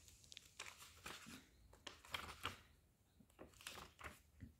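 Pages of a thick paperback book being turned by hand: a series of soft paper rustles and flicks.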